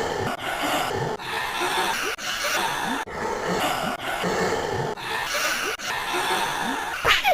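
A cartoon character's laughing voice run through editing effects, chopped into short repeated pieces just under a second each with sharp cuts between them. Near the end a quick rising sweep, then it cuts off abruptly.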